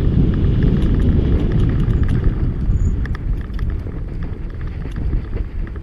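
Fat-tire snow bike ridden over packed snow, heard from a camera on the bike or rider: a dense, steady low noise of wind on the microphone and tyres on snow, with scattered light rattling clicks from the bike. It eases off a little about halfway through.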